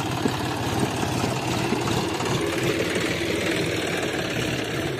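John Deere 5050D tractor's three-cylinder diesel engine running steadily, with a rapid, even beat.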